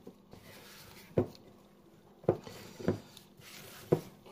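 Spatula folding flour into whisked egg-white waffle batter in a mixing bowl: four dull knocks about a second apart as the spatula strikes the bowl.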